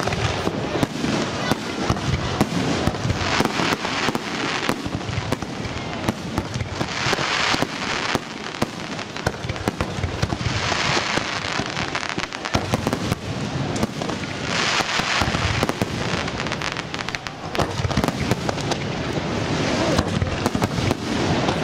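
Aerial fireworks display: shells bursting in a dense, continuous run of bangs, with several stretches of crackling hiss layered over them.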